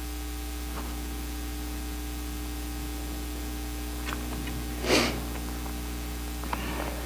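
Steady electrical hum from a sound system, with a couple of faint clicks and one short hissy burst of noise about five seconds in.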